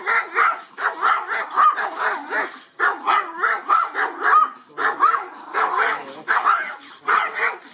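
Two Chihuahuas barking together in a rapid, continuous run of high-pitched yappy barks, about two to three a second, with a brief pause about three seconds in.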